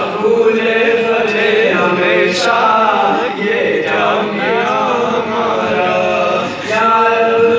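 A man sings an Urdu tarana (devotional anthem) into a handheld microphone, holding long, wavering notes in a chant-like melody.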